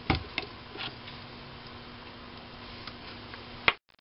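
Small metal clicks and taps from handling the chuck of a Sherline mini lathe as the turned aluminium part is taken out. A faint steady hum runs underneath. There is one sharp click near the end, and then the sound cuts out.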